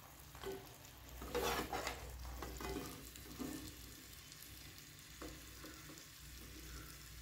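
Faint sizzling of hot oil in a kadai as a fried adhirasam is lifted out on a perforated steel spoon, the spoon scraping the pan in the first few seconds. A single light tick about five seconds in.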